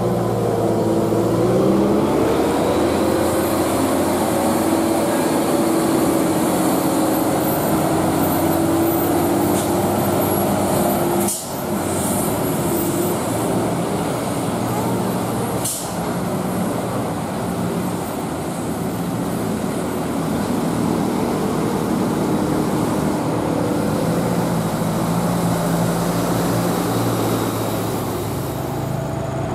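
Heavy trucks' diesel engines running as they pass on the road with other traffic, the engine note sliding down and then back up in the first few seconds.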